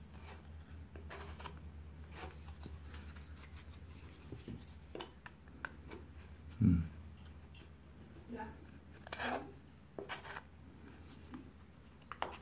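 Metal putty knife scraping over gypsum joint compound at the corner joint of a gypsum cornice, in short irregular strokes that clean off the excess and follow the moulding's profile. A dull low thump about seven seconds in.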